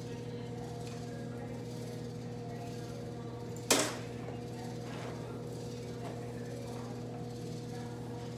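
Steady low electrical hum, with one sharp clack a little under four seconds in as a tool is set down on the counter.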